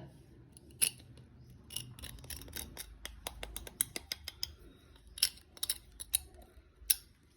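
Irregular sharp clicks and clinks of kitchen utensils and dishes being handled, the loudest about a second in, around five seconds in and near the end.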